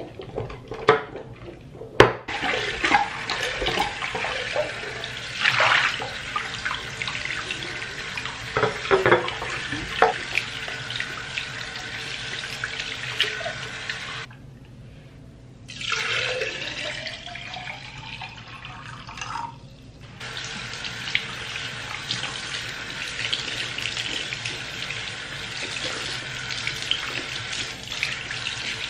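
Bathroom sink tap running while a glass vase is scrubbed and rinsed, with a few sharp knocks of glass early on. About halfway the water stops briefly, then runs into the vase with a rising pitch as it fills, and the tap runs steadily again near the end as the bamboo's roots are rinsed.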